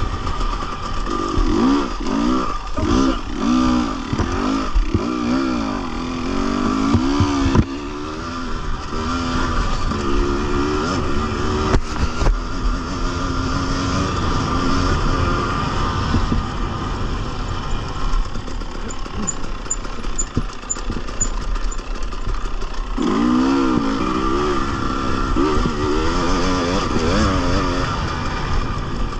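Husqvarna TX 300 two-stroke dirt bike engine revving up and down repeatedly. It settles to a steadier note about halfway through, then revs hard again near the end, with scattered knocks and rattles.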